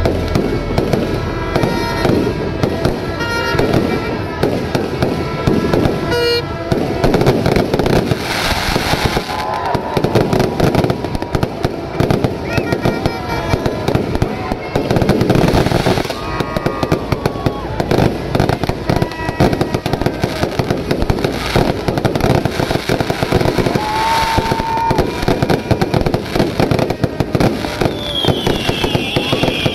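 Fireworks display going off continuously, with aerial shells bursting and crackling in quick succession without a pause.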